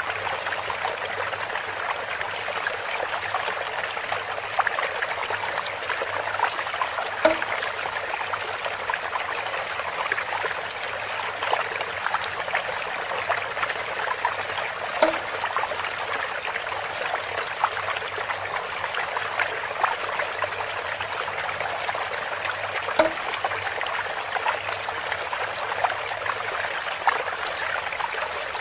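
Water trickling steadily through a bamboo spout. Three times, about every eight seconds, there is a short hollow pitched plonk.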